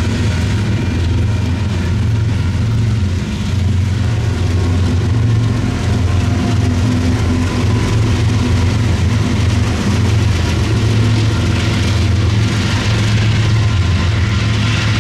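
Two BNSF diesel locomotives, the freight train's rear distributed-power units, pass close by with a steady low engine drone that grows louder partway through, following the last freight cars. The crossing's WCH electronic bell rings throughout.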